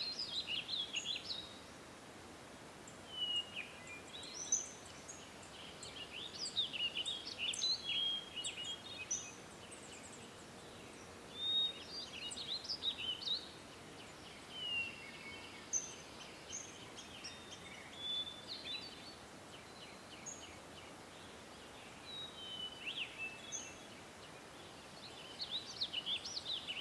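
Several small birds chirping and singing, with short high calls and trills coming in clusters every few seconds over a faint steady hiss.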